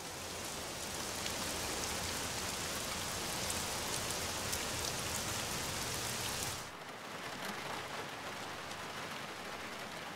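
Steady rain falling. About two-thirds of the way through it drops to a softer, duller rain on a car, heard from inside.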